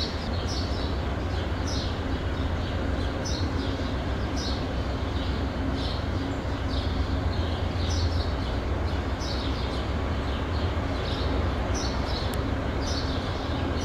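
Steady low rumble of an approaching Amtrak diesel locomotive, with a bird chirping over and over above it.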